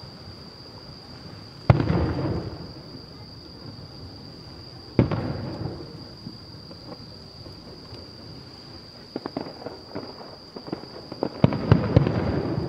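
Distant aerial firework shells bursting. There is a single bang about two seconds in and another about five seconds in, each trailing off over about a second. Scattered crackling pops follow, then a quick flurry of bangs near the end.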